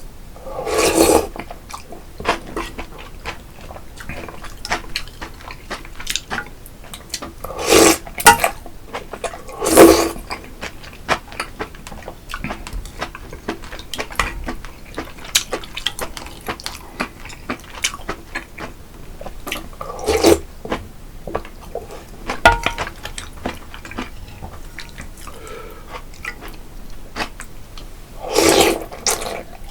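Close-up eating sounds: wet chewing and mouth clicks, broken by a handful of louder, noisy slurps or sips of about a second each.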